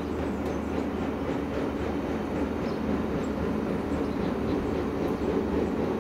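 Diesel engine of a self-propelled on-track maintenance machine running steadily as it travels along the rails, a continuous low hum with no break.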